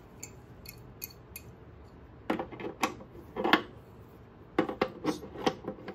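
Pliers clinking and scraping against a brass nut as it is threaded and tightened onto a fitting in a plastic humidifier housing. A few faint clicks come first, then a run of sharper metallic clanks in the last few seconds.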